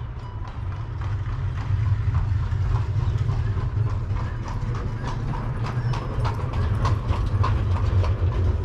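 A horse's hooves clip-clopping in a steady trot along the road, with a low steady rumble underneath, typical of an Amish horse and buggy passing.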